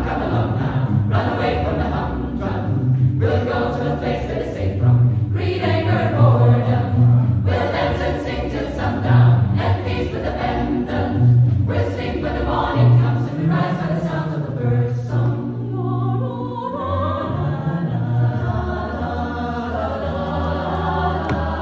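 Mixed church choir singing in several voice parts, men's and women's voices together, with a strong low bass line under the melody; the sound thins briefly about two-thirds of the way through before the full choir returns.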